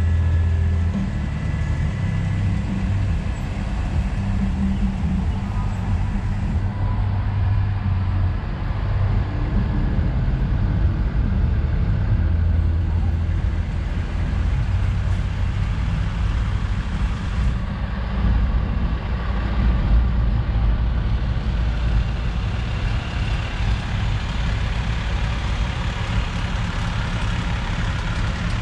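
Fire trucks' engines running with a steady low rumble as a line of fire apparatus drives slowly past, one truck after another.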